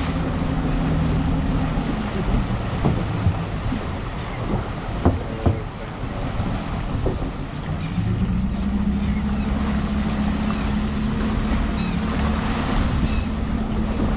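Suzuki outboard motor running at trolling speed over wind and water rushing past the hull. Its steady hum drops away after about two seconds and comes back steady about eight seconds in. A few sharp knocks fall in the quieter middle.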